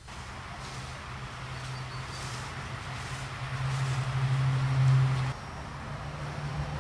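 A steady low hum with a rushing noise over it, growing louder, then cutting off abruptly about five seconds in, after which a similar, slightly higher hum carries on.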